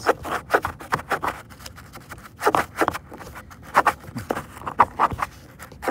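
Detailing brush scrubbing back and forth inside the plastic door-pull recess of a car door panel: a quick scratchy bristle-on-plastic scrubbing in uneven bursts.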